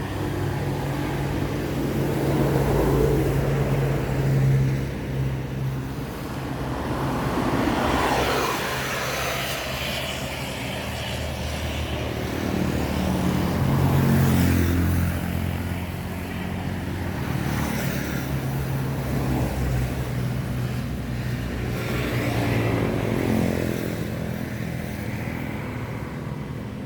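Engine noise: a low, steady hum that swells and fades several times.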